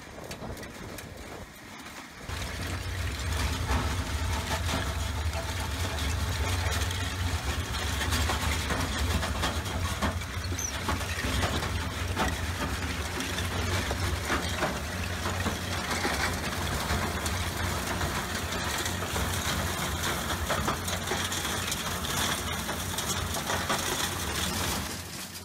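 A 16-inch by 12-inch hammer mill driven by a 15-horsepower electric motor, crushing oyster shells: a steady low hum under a dense crackle and rattle of shell breaking and rattling through the mill. It comes in suddenly about two seconds in and drops away just before the end.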